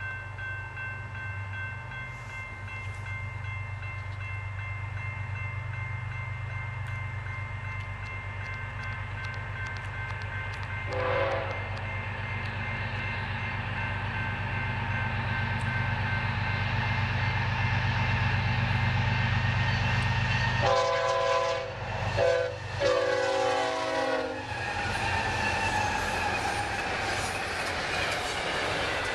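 BNSF double-stack intermodal train led by a GE C44-9W diesel approaching and passing, its engine rumble growing steadily louder. The horn gives one brief blast about eleven seconds in, then a long blast, a short one and another long one around the crossing. The locomotives then go by with wheel and rail clatter.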